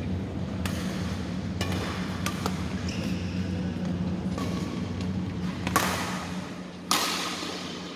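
Badminton rackets striking a shuttlecock during a rally, each hit a sharp crack with some ring of the hall, about five in all with the two loudest near the end, over a steady low hum.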